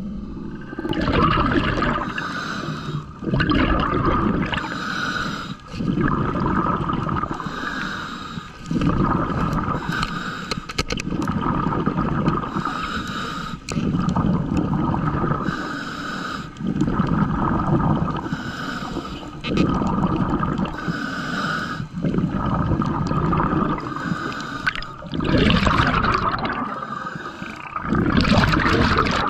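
A scuba diver breathing through a regulator underwater, about one breath every two seconds. Each breath brings a hiss and a gurgle of exhaled bubbles.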